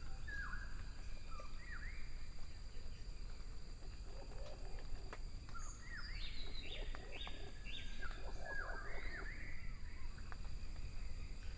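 Wild birds calling: short rising whistled notes, a few near the start and a denser run of calls from about six to nine seconds in, over a faint steady background.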